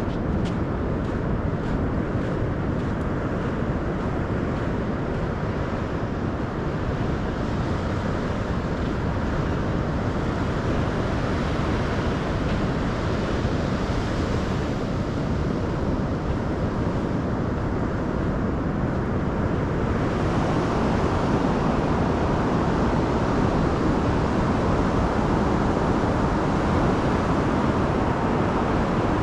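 Steady rush of ocean surf with wind buffeting the microphone. About twenty seconds in, the noise grows louder and brighter.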